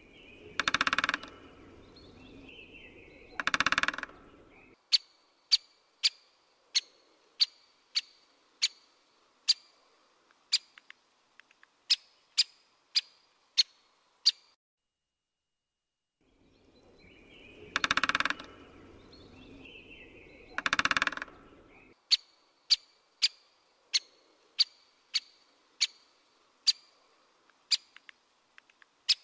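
Great spotted woodpecker sounds: two loud, harsh notes, then a run of sharp clicking notes about twice a second. After a short pause the same sequence repeats.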